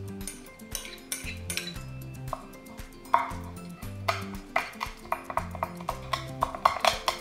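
Kitchen knife chopping rice koji on a wooden cutting board: a run of sharp taps, faster and louder toward the end. A metal spoon scrapes the koji out of a glass bowl in the first seconds. Soft background music plays throughout.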